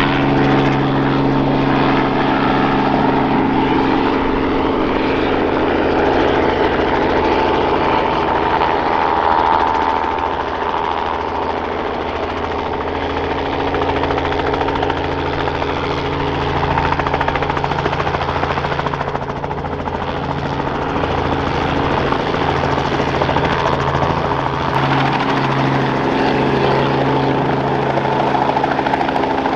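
Robinson R44 Clipper II helicopter hover-taxiing low, its six-cylinder Lycoming IO-540 piston engine and main rotor running steadily. It is a little quieter about ten seconds in and again near twenty seconds.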